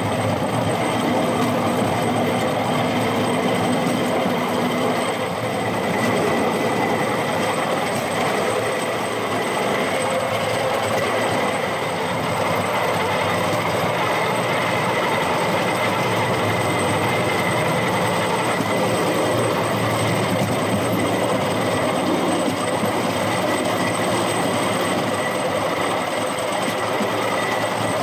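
Rail-mounted golf cart running steadily along railway track: a continuous rumble of its wheels on the rails, with a faint high whine over it.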